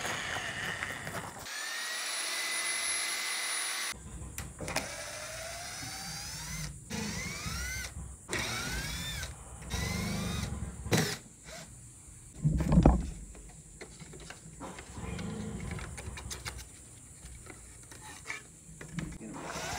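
Corded electric drill driving a mud-mixer paddle through thick epoxy in a plastic bucket. The motor whines up to speed again and again in short runs. There is a loud knock about 13 seconds in.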